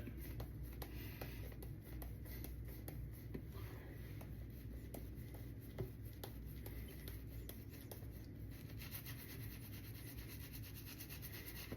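Faint, soft rubbing and small scratchy ticks as a shaving brush with a 26mm S2 Innovator knot is worked through a thick, overloaded paste of shaving soap that is too stiff to spread yet.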